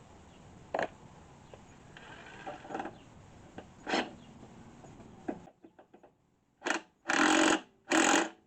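Cordless impact driver hammering in three short bursts near the end, driving the mower's blade bolt, after a few metal clinks of the socket and tools being handled.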